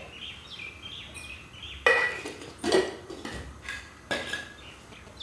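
A metal spoon clinking against a kadhai as ghee is scooped and tapped into the pan: three sharp clinks with a short metallic ring, about two, two and three-quarters, and four seconds in.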